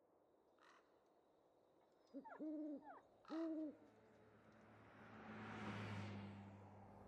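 Two short hooting calls a second apart, then a delivery truck passing on the street, its noise swelling to a peak about six seconds in and easing off.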